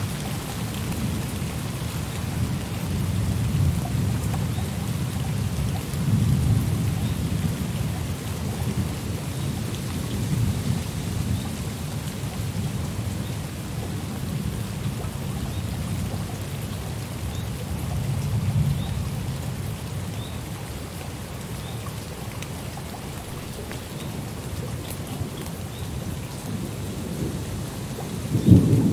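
Thunderstorm: steady rain with rolling thunder rumbling low and swelling several times, and a sharper, louder thunderclap near the end.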